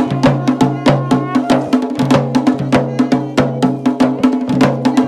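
Music with a quick, steady drum beat of about four to five strikes a second over a sustained drone.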